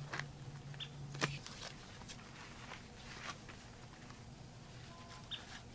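Faint outdoor quiet with scattered light clicks and rustles and a couple of short high chirps; a low steady hum stops a little over a second in.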